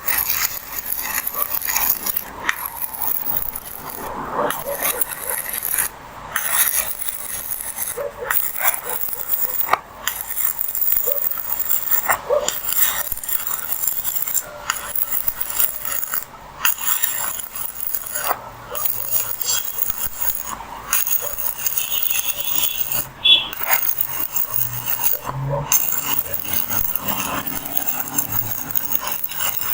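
Steady scraping on metal, broken by short pauses about every two seconds.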